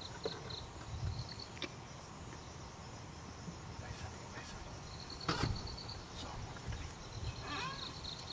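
Field ambience from a tourist's wildlife video: insects chirping in short trains of rapid, high pulses that come and go. There is a sharp knock about five seconds in and a brief warbling call near the end.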